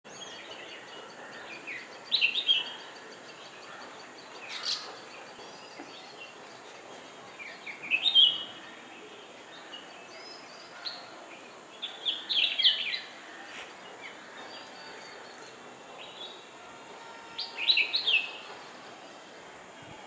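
Red-whiskered bulbul calling: five short bursts of bright chirping notes a few seconds apart, over a faint steady background hiss.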